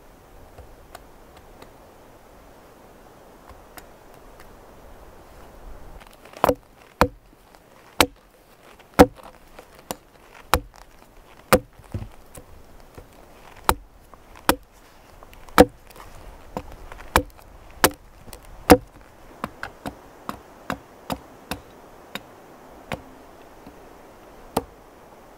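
Hatchet chopping the end of a wooden pole into a point against a log: a couple of dozen sharp strikes, about one a second, starting about six seconds in, with a run of lighter, quicker taps near the end.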